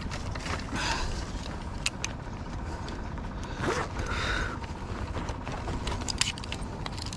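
Fishing rod and baitcasting reel being handled: small mechanical clicks and creaks, with two brief whooshing sweeps, one about a second in and one near the middle, over a steady low rumble of wind on the microphone.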